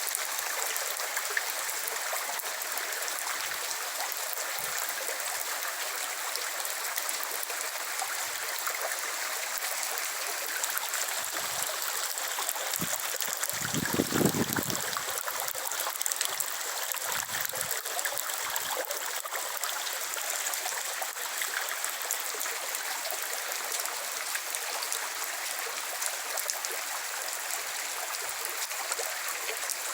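Steady rain falling, an even hiss of many drops with water trickling. A brief low rumble comes about fourteen seconds in.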